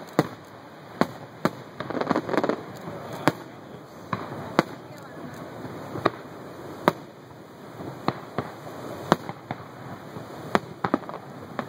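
Aerial fireworks shells bursting in a display, a dozen or more sharp bangs at irregular intervals, with a denser cluster of reports about two seconds in, over a steady rushing background.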